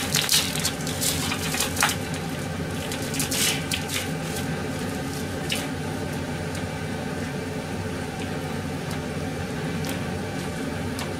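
Steady low kitchen hum while frying oil heats on the stove. Scattered clicks and wet squishing handling sounds of food being prepared come over the first five seconds, then only the hum remains.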